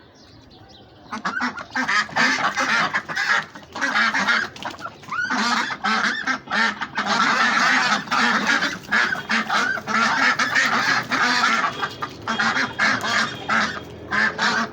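A flock of waterfowl calling: many loud, short calls overlapping in a dense, continuous din, beginning about a second in after a quiet start.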